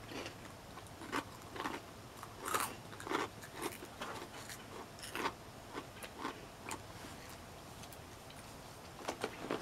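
Crispy baked shrimp chips being bitten and chewed: irregular crunches that thin out near the end.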